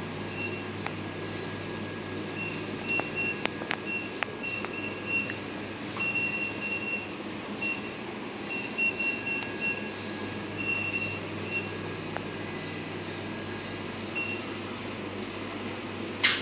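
Steady low hum of shop appliances, a standing fan and refrigerators, with short high beeps coming in irregular runs and a few light clicks. A sharp knock just before the end.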